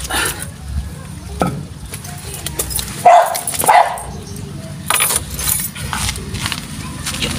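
A dog barking, loudest in two barks about three seconds in, half a second apart, with more sharp sounds around five seconds.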